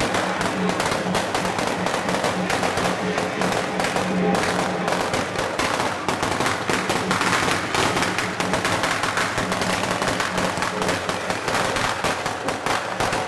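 A long string of firecrackers going off in a rapid, unbroken crackle of bangs, over a low steady hum.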